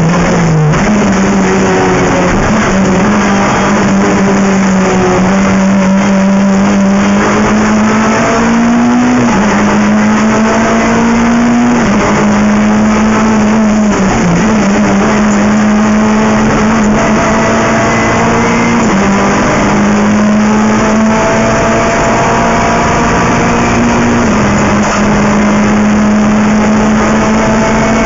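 Renault Clio Cup III race car's 2.0-litre four-cylinder engine running hard at high revs, heard loud from inside the cockpit over road and wind noise. Its pitch holds steady and steps down or dips briefly several times at gear changes.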